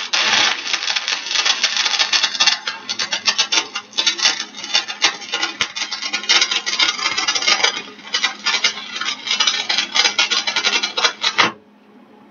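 Stick welding arc crackling and sputtering as a fillet bead is run joining steel pipe to steel plate. It starts abruptly as the arc is struck, crackles unevenly throughout, and breaks off sharply about a second before the end.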